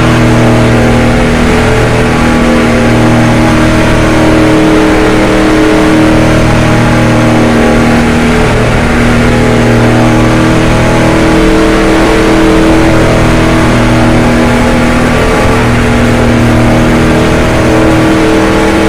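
A NASCAR stock car's V8 engine running hard at a nearly steady pitch, loud and unbroken, heard from inside the car's cockpit.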